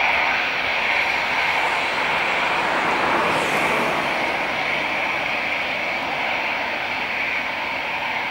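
Airbus A320's twin CFM56 turbofan engines running as the airliner rolls down the runway away from the listener, a steady jet rush with a high whine, slowly fading.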